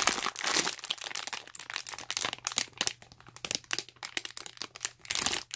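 Clear plastic packaging bag crinkling as hands squeeze a foam squishy toy through it: an irregular run of sharp crackles that cuts off suddenly near the end.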